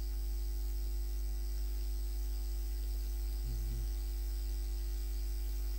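Steady electrical mains hum on the recording: a constant low hum with fainter steady tones above it, and no other activity.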